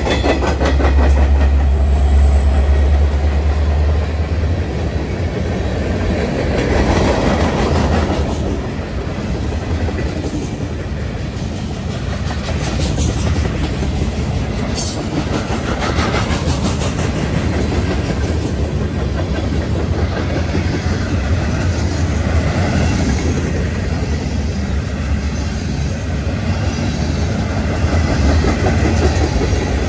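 Freight train cars, gondolas and tank cars, rolling past: a steady rumble with the rhythmic clickety-clack of wheels over rail joints. A brief high-pitched wheel squeal sounds about halfway through.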